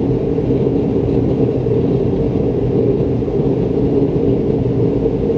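Foundry furnace burner running with a steady, loud roar.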